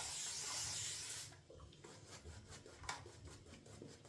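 Shaving brush with a mixed boar-and-badger knot being worked against soft, pasty Kronos-base shaving soap to build lather: a steady rubbing hiss that drops away after about a second to faint, occasional brush strokes.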